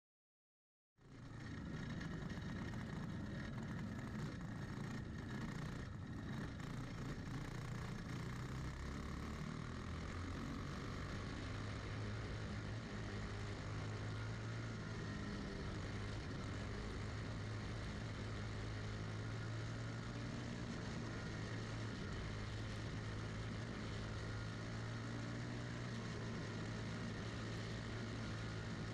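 Champ kart's single-cylinder Briggs & Stratton Animal engine running at a steady speed with an even, unchanging pitch, heard onboard on a dirt track. It cuts in about a second in.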